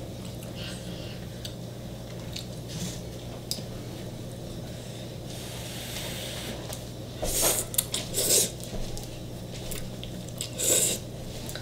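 A person slurping Korean spicy noodles off chopsticks, with a few loud, short slurps in the second half and softer chewing and mouth sounds before them.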